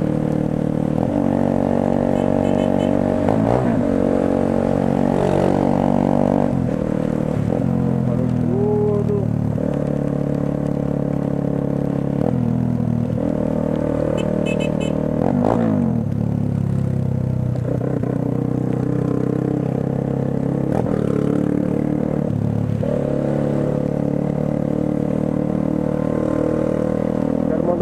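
Motorcycle engine running under way in traffic, its note rising and falling several times as the rider speeds up and eases off.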